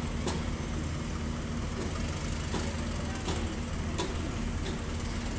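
A heavy construction machine's engine running steadily, with sharp metallic clanks about once a second.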